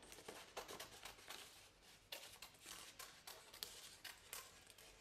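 Scissors cutting through a sheet of black paper: a series of faint, irregular snips.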